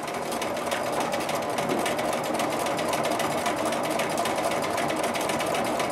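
Bernina sewing machine running steadily, its needle going up and down in rapid strokes as it free-motion quilts through a quilt sandwich.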